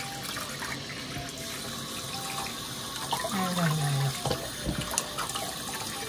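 Water spraying steadily from a handheld shower head onto a cat held in a mesh bathing bag in a sink. A little over three seconds in, a brief low sound falls in pitch over the water.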